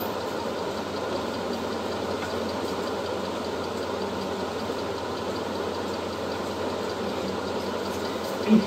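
Steady whirring drone of a running motor, such as a room fan or cooler, with a brief low sound near the end.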